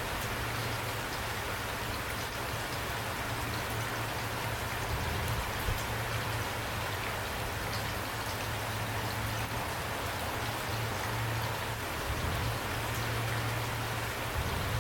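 Steady rain falling, an even hiss with scattered individual drops ticking through it, over a low hum that swells and fades.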